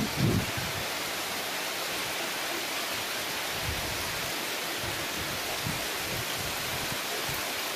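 Heavy monsoon rain pouring steadily onto banana leaves and garden foliage, an even hiss. A brief low rumble comes at the very start, then the rain goes on steadily.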